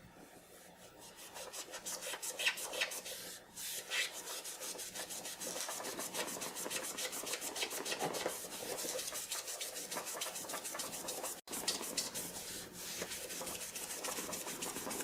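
Magic eraser (melamine foam) scrubbing fast back and forth on a Commodore 64's plastic case to wipe out a scuff mark. The rubbing starts about a second in and pauses briefly twice.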